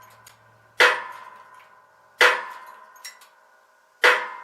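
Three sharp metal-on-metal strikes, about a second and a half apart, each ringing briefly, as the hub is driven step by step into a rear wheel bearing. A faint click falls between the second and third strike.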